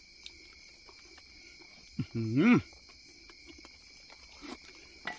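Steady chirring of night insects such as crickets. About two seconds in, a man makes a short voiced sound with a rise and fall in pitch.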